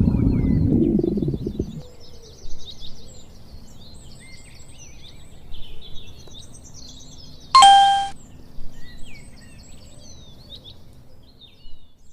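A low, bubbly stomach growl that stops about two seconds in, followed by birds chirping. About seven and a half seconds in, a single clear bell-like ding rings out and fades over about half a second.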